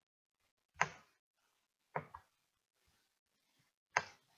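A few sharp computer mouse clicks, about a second apart, one of them a quick double click, with silence between them.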